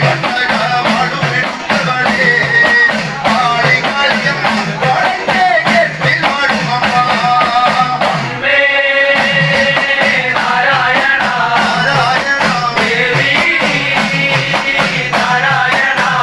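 Men's group singing a chinthupattu, a Kerala devotional folk song, to an even beat of hand-held cymbals. About halfway through, one voice holds a long steady note.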